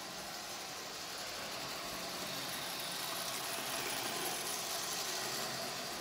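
Lionel rail inspection car's electric motor pulling two passenger cars around three-rail toy train track: a steady whir of motor and wheels on the rails, growing louder as the train passes close about four seconds in, then easing off.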